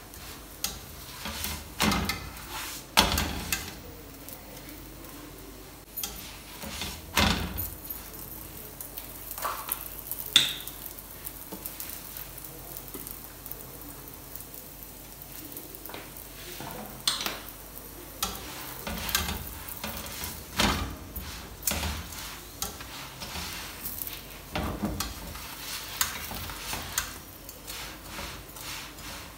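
Paratha frying on a flat tawa griddle: oil sizzling, with irregular clicks, taps and scrapes of a metal spatula turning and pressing the flatbread against the pan.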